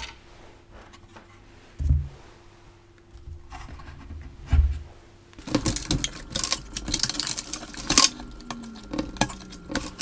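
Handling of an old steel PC case and its parts: two dull thumps in the first half, then from about halfway a busy run of metallic clinks, clicks and rattles from sheet-metal panels and cable connectors being moved.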